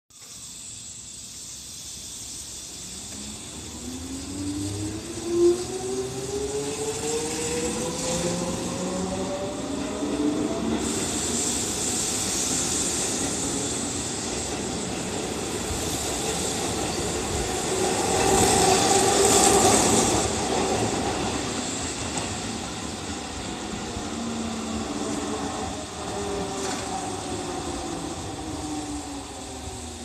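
Keihan 6000-series electric train pulling out of the station. Its traction motors whine, rising in pitch as it gathers speed, and the wheel and running noise is loudest as the cars pass close, about two-thirds of the way in. There is a sharp knock about five seconds in, and near the end a falling motor whine as another 6000-series train moves on a far track.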